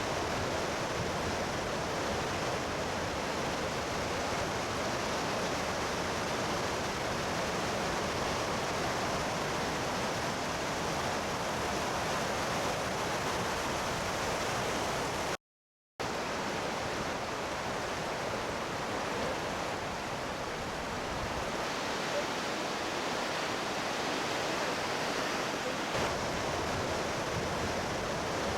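Fukiware Falls, a steady rush of falling water. It cuts out for a moment about halfway through, and for a few seconds later on the low rumble is weaker.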